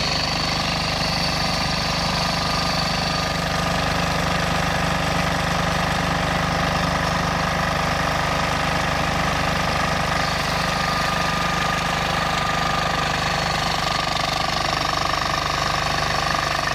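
The 18 hp diesel engine of a flail mower, running steadily at an even speed.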